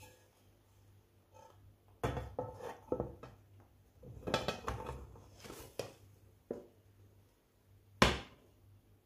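Tefal nonstick frying pans knocking and clattering against each other and the glass hob as one pan is turned over onto the other to flip the cake. There are several irregular knocks, then one sharp clank about eight seconds in, which is the loudest.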